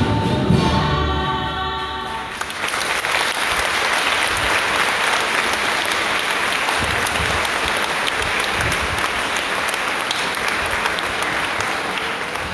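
A choir's singing ends in the first two seconds, then an audience applauds steadily for about ten seconds.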